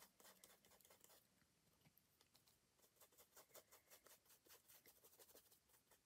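Near silence, with faint, quick scratchy strokes of a small ink brush dabbing on paper, pausing briefly about a second in.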